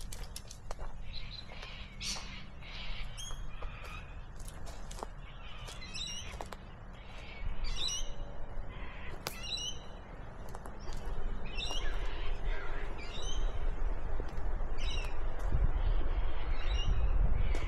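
Bush birds calling repeatedly, short runs of high chirping notes every second or two. From about two-thirds of the way through, a steady rushing of river rapids grows louder beneath them.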